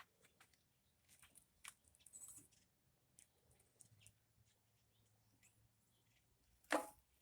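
Near silence broken by faint scattered clicks and scratches, with one sharper click near the end.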